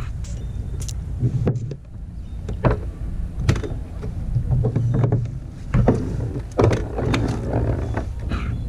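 Low wind rumble on the microphone and water against a kayak hull. Over it come scattered sharp clicks and knocks as a fishing rod and a freshly caught squid on its jig are handled in the kayak.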